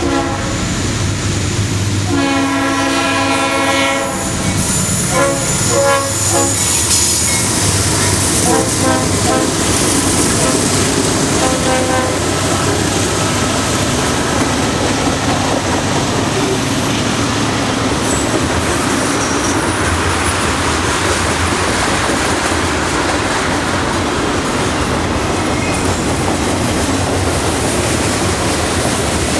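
Freight locomotive's multi-note air horn played as a horn show by the crew: a long blast, then a run of short blasts that ends about twelve seconds in. After that, the steady noise of the freight train's cars rolling past.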